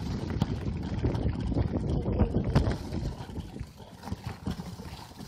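Wind buffeting the microphone and the rattle and knocking of a mountain bike rolling over a rough path, louder for the first three seconds, then easing.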